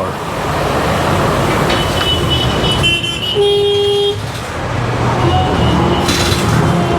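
Road traffic rumbling past, with a vehicle horn tooting for just under a second about three and a half seconds in.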